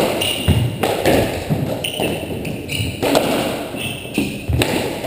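Doubles squash rally: racquets striking the ball and the ball smacking off the walls, sharp echoing impacts about once a second inside the enclosed court.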